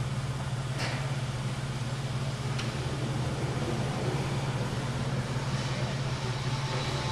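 A steady low machine hum under a faint background hiss, with two faint clicks in the first few seconds.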